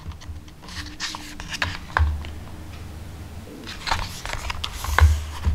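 Thick, stiff pages of a hardcover artbook being turned by hand: paper rustling with several short sharp flicks and taps.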